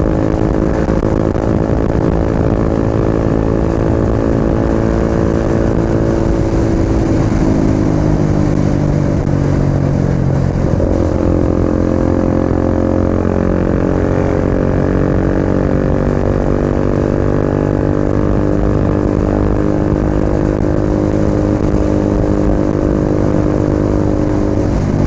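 KTM RC 250 single-cylinder four-stroke motorcycle engine running under way. Its pitch falls for a few seconds about seven seconds in, as the bike slows, then climbs again from about eleven seconds and holds steady.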